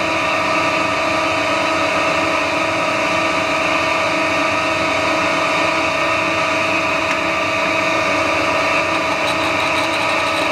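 Metal lathe running steadily, turning a UHMW plastic rod without coolant: an even whine from the motor and gear train with several steady tones, and no change in pitch as the tool feeds across the end.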